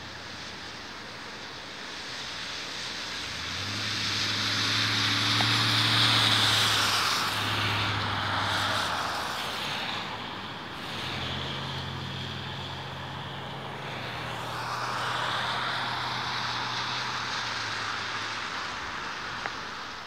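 Engine noise of a passing vehicle, with a steady low hum, swelling loudest about six seconds in and again around fifteen seconds before fading.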